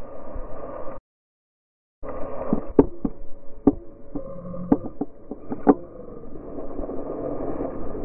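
Wind rushing over an action camera's microphone in paraglider flight, with a handful of sharp knocks scattered through the middle. The sound cuts out completely for about a second near the start.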